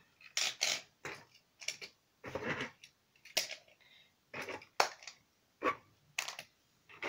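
Die-cast Norev toy cars being lifted off a cardboard shelf and set down on a wooden floor: about a dozen irregular clicks and light clatters.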